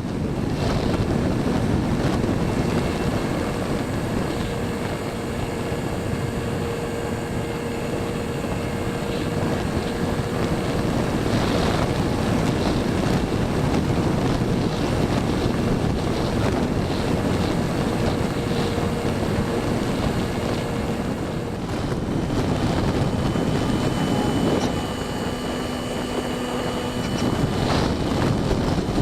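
Wind rushing over the microphone of a wing-mounted camera on an E-flite Apprentice STS RC trainer plane in flight, with the steady whine of its electric motor and propeller underneath. The whine drops lower about two-thirds of the way through.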